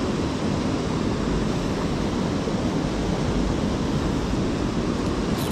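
Steady rush of fast, foam-covered river current.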